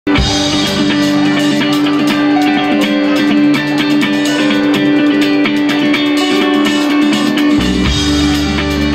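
Live band playing a song's instrumental introduction: electric guitar holds sustained notes over a steady drum beat. Low bass notes come in about seven and a half seconds in.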